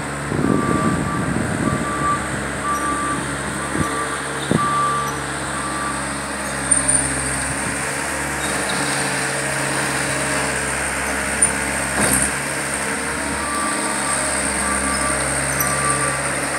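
Cat 247 compact track loader's diesel engine running steadily while it works the dirt floor, its reversing alarm beeping about every 0.7 seconds through the first six seconds and again near the end. A few sharp clanks stand out.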